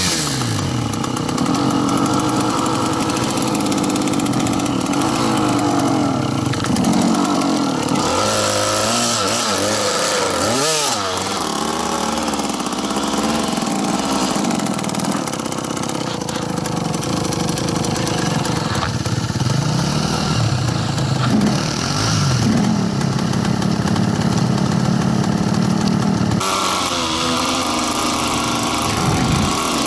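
Dirt bike engine running under way, revving up and down again and again as the throttle is opened and closed.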